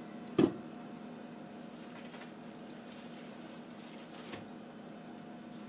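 One sharp clunk about half a second in as pork steaks are set into a stainless steel stockpot's perforated strainer insert, followed by a few faint handling sounds over a low steady hum.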